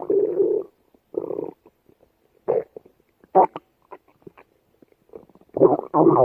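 Stomach growling and gurgling in a series of short rumbles, with a longer, louder rumble near the end.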